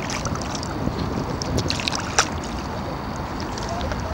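Choppy river water lapping and splashing against a kayak's hull, with wind rumbling on the microphone. Small splashes come and go, with a sharper one about two seconds in.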